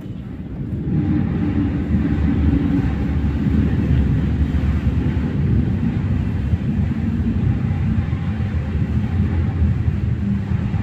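A loud, steady low rumble that swells in over the first second and then holds, with faint steady tones sounding above it.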